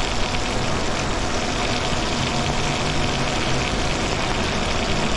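Electric bike riding at speed on a wet road: a steady rush of tyre swish and wind noise, with a faint, even hum from the motor underneath.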